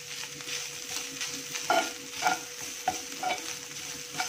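A metal spoon stirs and scrapes grated coconut around a hot nonstick pan over a low sizzle of coconut oil, with a few sharper scrapes against the pan in the second half. The coconut is being dry-roasted in the oil, early on before it browns.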